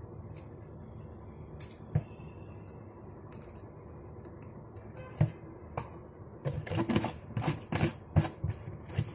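Crisp clicks from eating chocolate wafer sticks and a hand rummaging in a plastic snack jar. A few single sharp clicks come first, then a quick run of clicks and rattles in the last few seconds.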